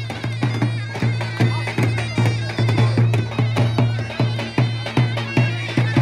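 Traditional Turkish folk dance music: a wind-instrument melody over a steady low drone and a drum beat of about two and a half hits a second.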